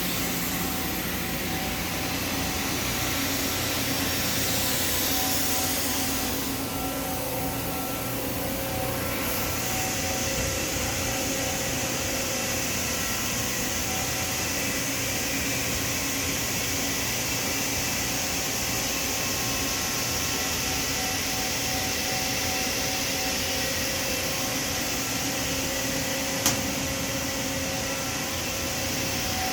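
Steady mechanical hum and hiss of running machinery, with a few faint steady tones and one sharp click about 26 seconds in.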